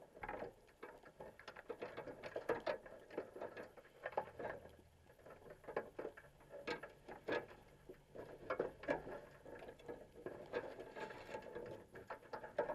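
Underwater, a rapid, irregular patter of clicks and taps: crabs' legs and shells knocking and scraping against the wire mesh of a crab pot.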